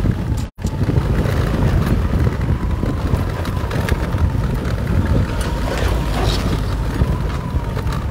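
Wind buffeting the microphone of a moving motorbike, over a steady low road and engine rumble, with a faint steady whine. The sound cuts out completely for an instant about half a second in.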